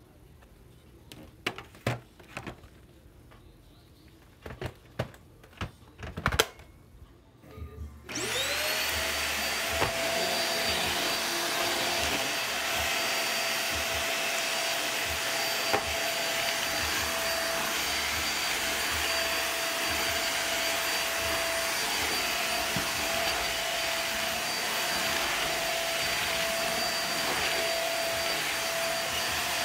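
Several sharp clicks and knocks of plastic parts being handled, then about eight seconds in an upright bagless vacuum cleaner switches on. Its motor whine rises quickly to a steady run with a high, even tone, and there is a single knock later on.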